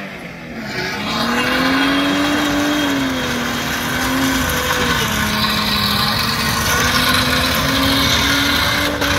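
Holden VY Commodore ute's V6 engine held at high revs in a burnout, getting louder about a second in. The tyre has come off, and the bare steel wheel rim grinds on the road, throwing sparks.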